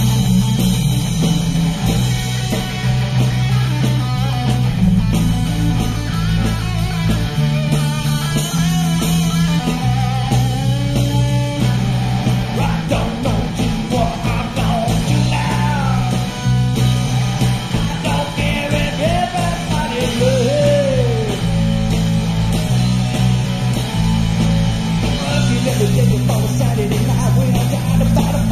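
A rock band playing a song on electric guitar, bass guitar and drums, with a man singing lead vocals over a bass line that steps between held notes.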